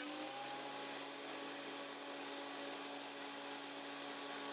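Scheppach HMS 850 planer thicknesser running steadily as a 2x4 is fed through the thicknessing side. The motor's pitch dips slightly just after the start as the cutters take the board.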